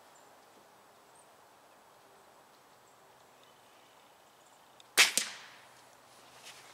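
A single shot from a Benjamin Prowler break-barrel air rifle about five seconds in: a sharp crack with a short ring-off, and a smaller click right after it.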